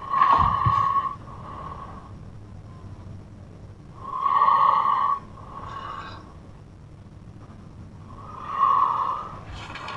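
A sleeping person snoring very loudly: three long snores about four seconds apart, with softer breaths between them.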